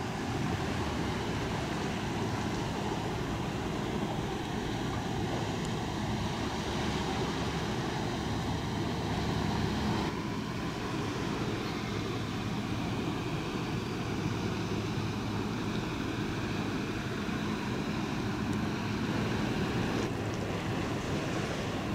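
Tugboat's diesel engines running steadily under way, a continuous low drone, with the rush of its bow wave and wind noise.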